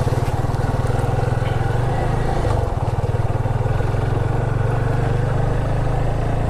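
Motorcycle engine running steadily as the bike is ridden along a gravel road, with a brief change in the engine note about two and a half seconds in.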